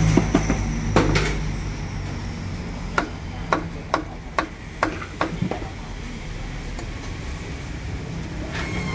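Meat cleaver chopping poached chicken on a round wooden chopping block: a couple of chops near the start, then a run of about seven sharp chops, roughly two a second, from about three seconds in. A low road-traffic rumble runs underneath, louder in the first second or so.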